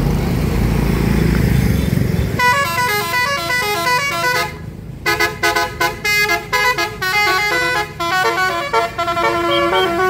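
A bus engine rumbles close by, then from about two seconds in a Basuri "telolet" multi-tone bus horn plays a quick melody of short stepping notes, with a brief pause about halfway through.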